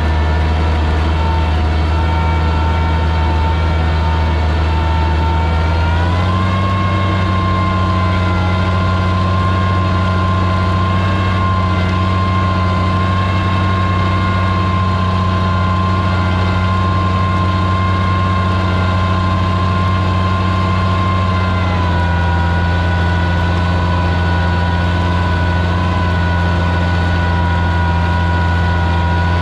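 Oliver 77 tractor's six-cylinder engine running steadily under load while pulling a plow. Its speed rises a little about six seconds in and eases back down about three quarters of the way through.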